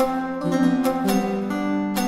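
Omnisphere software synthesizer playing a plucked-string patch in a Turkish/oriental-style improvisation: a line of plucked notes with sharp attacks over held lower notes.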